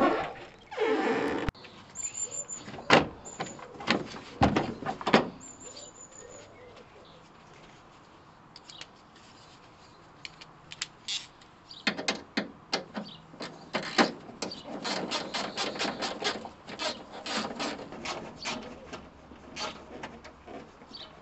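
Irregular sharp clicks and knocks of hard plastic trim being handled around a car's open grille opening, in two spells with a quiet gap between them and a dense run near the end. A bird chirps briefly near the start.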